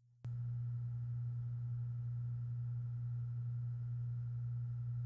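Very slight steady electrical hum, the recorded background noise of a room with computer fans and powered hardware, picked up by a microphone during a take meant to be silent. It is a low steady tone with a faint higher whine above it, starting suddenly about a quarter second in.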